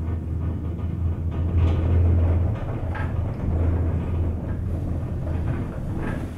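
Steady low rumble inside a moving Von Roll gondola cabin riding up the haul rope, with a few short rattles or clicks, about three over the span.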